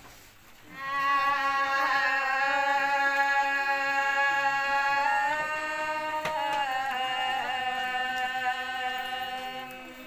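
Women singing together in a traditional Kim Mun style, holding long drawn-out notes; the pitch steps up about halfway through and back down a second later.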